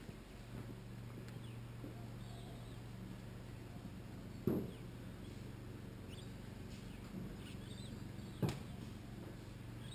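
Two sharp knocks about four seconds apart, the loudest sounds, over a low steady hum, with faint bird chirps.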